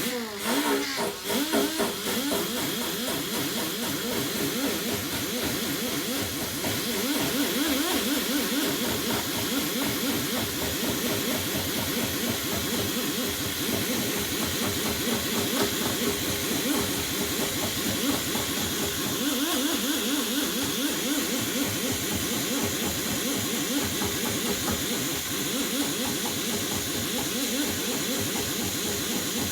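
Air-powered grinder spinning a 3M rubber eraser wheel, running with a steady hiss and a wavering motor tone as the wheel rubs old emblem adhesive tape off the car's paint.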